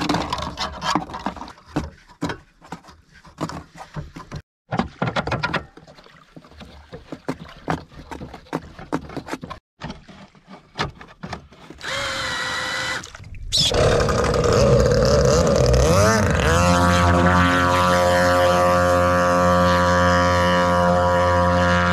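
Handling noises of the jet unit being worked on, with scattered clicks and knocks. From about two-thirds of the way in, the jet board's twin two-stroke engines run loud and steady, rising in pitch once as they rev up, then holding an even tone.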